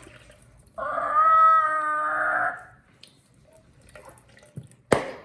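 A person's voice holds one long, steady vowel for about two seconds. Near the end comes a single sharp hammer blow on a whole, hard-shelled coconut.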